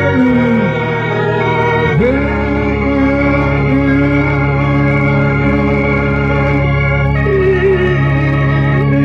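Electronic organ music: sustained held chords with a melody line sliding between notes over them.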